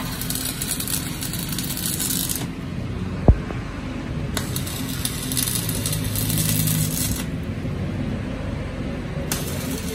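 Stick welding on a steel drive shaft tube, joining the repaired shaft: three bursts of arc crackle and sizzle, each a couple of seconds long, with pauses between them. A single sharp knock comes about three seconds in, and a steady low hum runs underneath.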